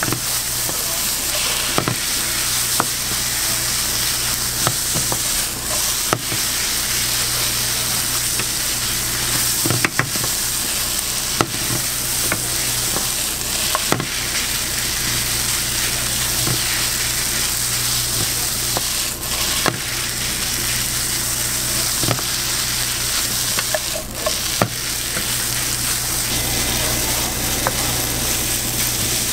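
Fried rice sizzling in a hot nonstick frying pan as a wooden spatula stirs and scrapes it, with frequent sharp knocks of the spatula against the pan, over a steady low hum.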